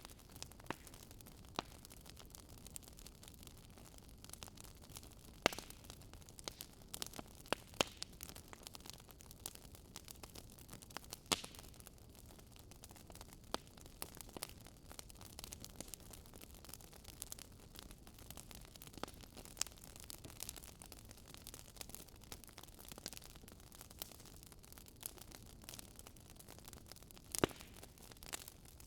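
Wood fire crackling in a fireplace: a soft steady hiss with irregular sharp pops and snaps, the loudest about five seconds in and again near the end.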